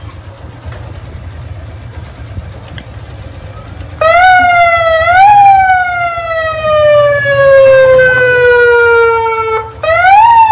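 Loud siren-like wail that comes on suddenly about four seconds in, rises briefly, then slides slowly down in pitch for about four seconds, breaks off and starts up again with another rise near the end. A low steady rumble sits under it.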